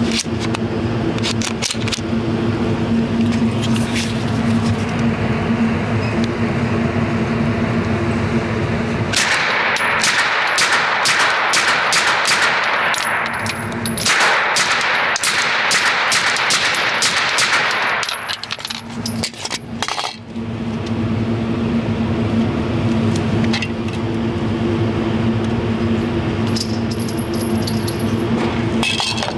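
A suppressed 9mm pistol firing a long string of quick shots from about a third of the way in, lasting some ten seconds. A steady low hum runs before and after the shots.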